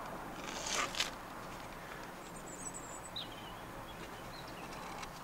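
A short rustle ending in a sharp click about a second in, then a few faint, high bird chirps over a steady background hiss.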